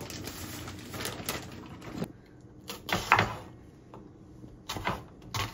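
Kitchen prep: a plastic food bag rustling, then a few separate knife strokes on a wooden cutting board as a red onion is chopped.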